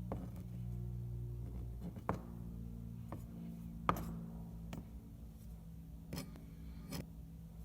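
A blade cutting through kinetic sand, making about seven sharp, short cutting clicks at uneven intervals, over a low steady drone of background music.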